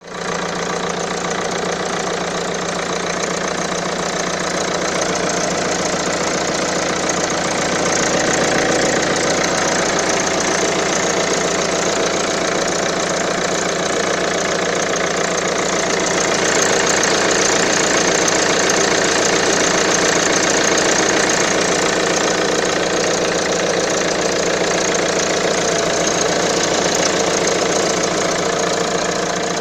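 Car engine idling steadily with a squeak from the drive belt area.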